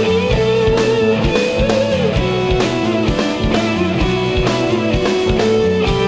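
Instrumental rock music: an electric guitar plays a held lead melody with pitch bends over a steady drum-kit beat.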